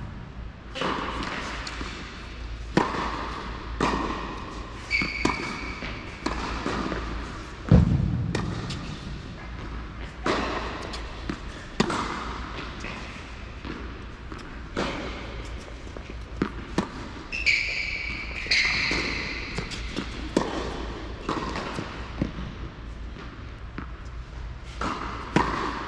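Tennis balls being struck and bouncing on an indoor hard court, a string of sharp pops at irregular intervals, each followed by the echo of the large hall. A couple of short high squeaks come in around a fifth of the way through and again past the middle.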